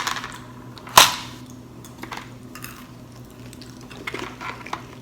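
A single sharp click or knock about a second in, followed by a few faint clicks and rustles.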